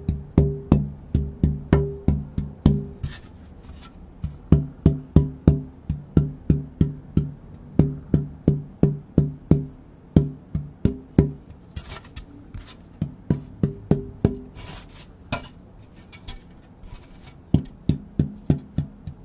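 Tap-toning a German spruce guitar soundboard blank: a long series of sharp taps, each with a short ringing note. Tapping different spots on the board gives different pitches. The taps come in quick runs of about two to three a second, with two sparser stretches.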